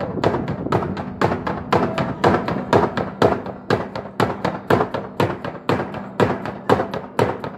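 A drum beaten in a steady rhythm, about two strong beats a second with lighter strokes between them, accompanying a Navajo ritual performance.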